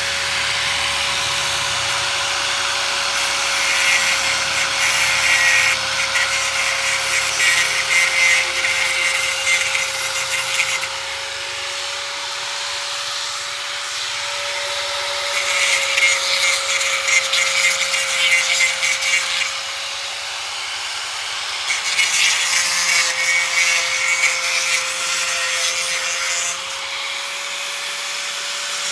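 A power saw cutting wood in three long passes of several seconds each, over a steady whine that runs throughout.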